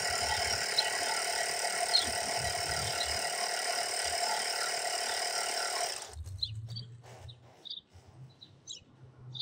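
Battery-powered portable electric tyre pump running steadily, inflating a moped's punctured inner tube so the leak can be found; it is switched off abruptly about six seconds in. Birds chirp briefly afterwards.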